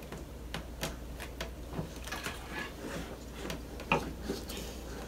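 Thin plastic bag crinkling and rustling in the hands as slime is squeezed out of it into a plastic egg, with irregular small clicks and one sharper click about four seconds in.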